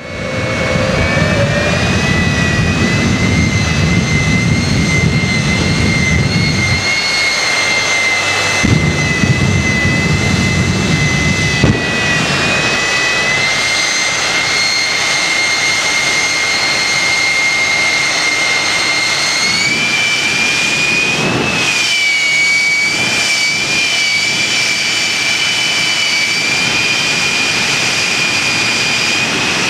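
Kenworth jet truck's jet engine running while the truck stands still: a loud, steady high whine over a deep rumble that fades after about seven seconds. The whine steps up in pitch about twenty seconds in.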